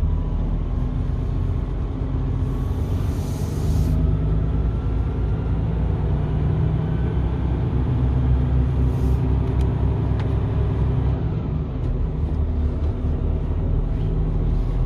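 Mercedes-Benz Arocs truck's diesel engine running steadily under way, heard from inside the cab as a low rumble. A short hiss about two and a half seconds in, and a fainter brief one later.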